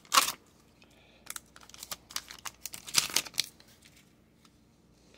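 Foil wrapper of an Upper Deck MVP hockey card pack crinkling and tearing as it is peeled open by hand, in several short bursts, the last about three seconds in.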